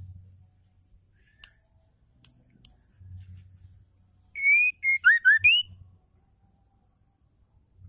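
White-rumped shama giving a few short sharp clicks, then, about four seconds in, a quick run of clear whistled notes, several sliding up or down, lasting about a second and a half.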